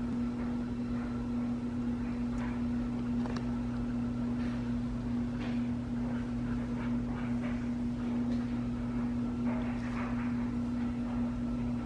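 A steady low machine hum at an unchanging pitch, with faint scattered soft ticks and rustles over it.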